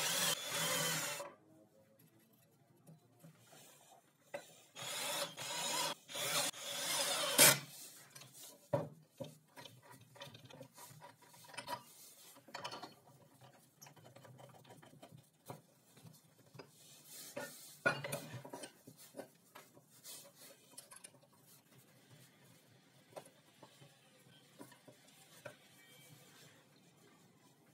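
Cordless drill boring into a plywood base, stopping about a second in, then more short loud bursts a few seconds later. After that, scattered clicks and knocks as an angle grinder and a metal angle bracket are handled and set on the wooden base.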